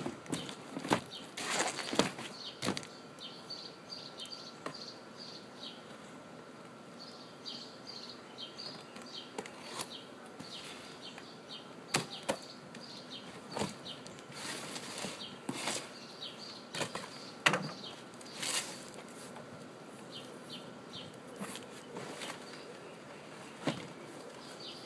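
A parcel being opened and its packaging handled: irregular rustling and crinkling, with scattered sharp knocks and clicks.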